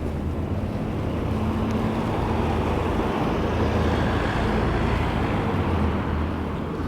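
Street traffic: a road vehicle passes, its noise swelling and then easing off, over a steady low rumble of wind on the microphones.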